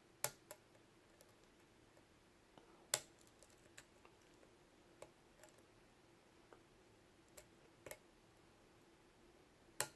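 Lock pick and tension wrench working the pins inside a Lockwood 356S63 padlock: scattered small sharp clicks and ticks, a few louder ones near the start, about three seconds in and near the end.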